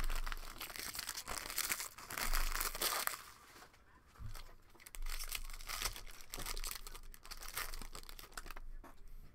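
Plastic trading-card pack wrappers being torn open and crinkled in two spells, with a short lull about four seconds in.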